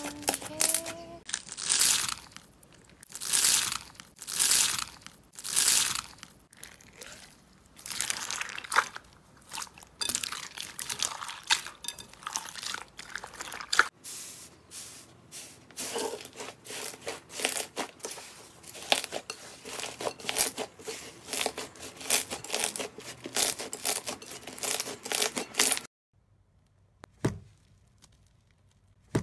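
Slime being kneaded and poked by hand: wet squelching pulls about once a second, then crinkly crackling and popping as fingers work into a foam-textured slime. Near the end it goes almost quiet, with one soft squish.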